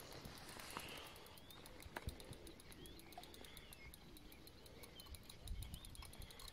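Quiet outdoor ambience with a few faint bird chirps and a fast, faint high-pitched ticking. A soft knock comes about two seconds in and a low rumble near the end.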